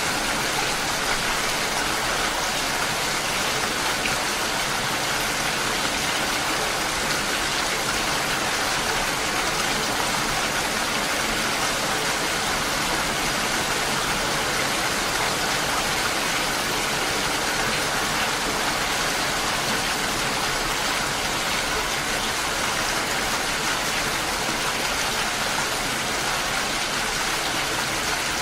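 Steady, dense rain falling, an even hiss of many drops without a break.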